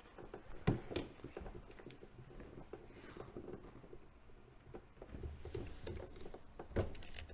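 Hands working the plastic hose connections on a DJI Agras T40 spray drone's tank: scattered small clicks, knocks and rustles of plastic. A sharp click comes just under a second in and another near the end.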